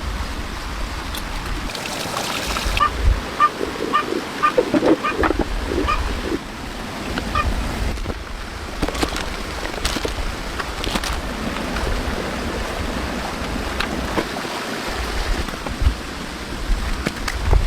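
Wind rumbling on the microphone outdoors, with scattered rustles and clicks. A run of short, evenly spaced high calls about three to six seconds in.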